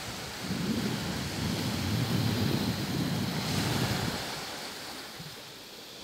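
Small sea waves washing on a sand beach, with wind buffeting the microphone from about half a second in, dying away after about four seconds.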